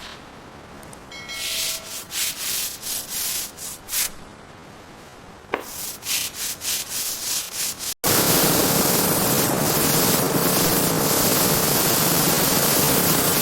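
Hand sanding: rhythmic back-and-forth strokes of sandpaper, about two or three a second, in two runs with a short pause between. After a sudden cut about eight seconds in, a steady loud hiss takes over.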